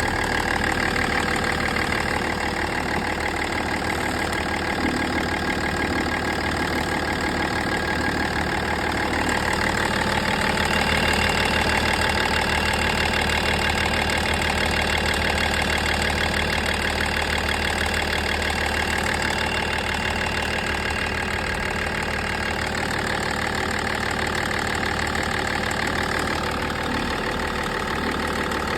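BMW M57 straight-six diesel engine idling steadily, with a rapid ticking noise over the engine sound, the ticking and vibration the owner is showing as a fault.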